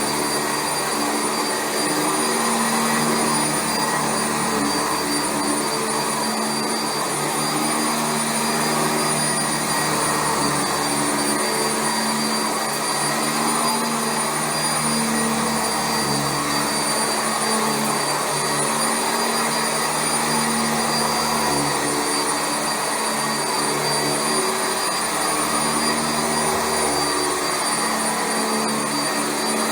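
Sanitaire SC679J commercial upright vacuum cleaner running on carpet: a steady motor whine with a lower hum that rises and falls every second or two.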